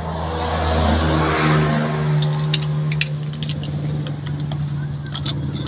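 A motor vehicle engine running, revving up about a second in and then holding steady. Light metallic clicks of a small tool against the planetary hub's parts come between about 2 and 3 seconds in and again near the end.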